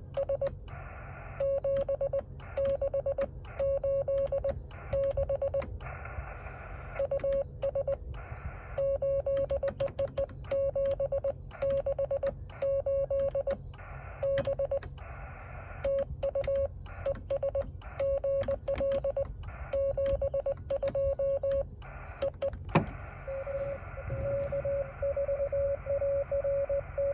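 Morse code (CW) from a Yaesu FT-817 ham radio transceiver: a single mid-pitched tone keyed on and off in dots and dashes over receiver hiss, with sharp clicks between the elements.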